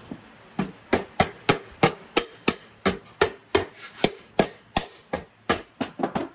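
A rapid series of sharp hand-tool strokes, about three a second and some eighteen in all, as a part of a small four-stroke petrol engine is worked on.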